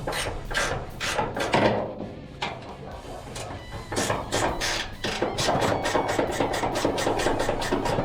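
Hand ratchet wrench clicking in quick repeated strokes as a bolt is loosened.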